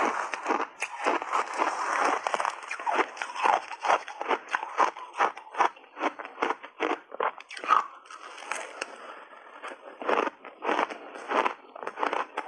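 Crunchy shaved ice dusted with matcha and milk powder being bitten and chewed: rapid, rhythmic crunches, with a quieter stretch about two-thirds of the way through before the crunching picks up again.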